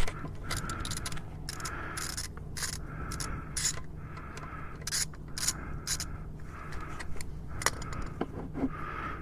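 Hand-tool work on a motorcycle during an oil change: sharp irregular metal clicks and a short rasp that repeats about once a second, over a steady low hum.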